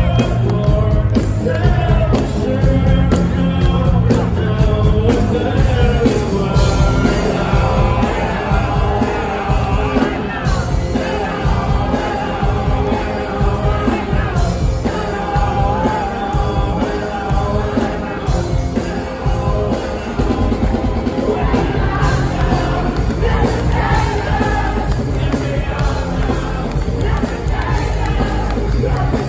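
Live folk-rock band (drums, bass, electric guitar and keyboard) playing loud while a male lead singer sings in French, heard from within the audience.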